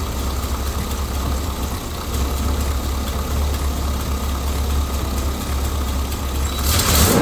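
Chevrolet 454 big-block V8 idling steadily on a freshly fitted distributor cap, rotor and spark plugs, then the throttle is blipped near the end and the revs climb.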